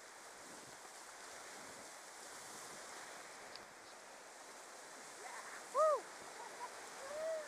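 Whitewater river rapids rushing steadily around a paddled inflatable kayak. Near the end two short high calls rise and fall over the water noise, the first one louder.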